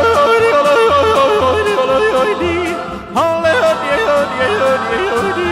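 Yodelling in a song: a voice flips rapidly up and down between chest voice and falsetto over a backing track with a steady beat.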